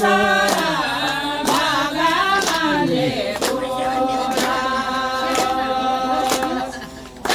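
A group of women singing a song together in unison and clapping their hands to a steady beat. Their voices hold long notes in the middle and fade near the end.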